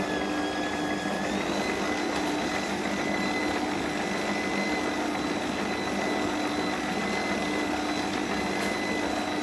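Kenwood kitchen machine's motor running steadily as its mixing attachment kneads minced meat in a steel bowl. A steady whine rises slightly in pitch about a second in.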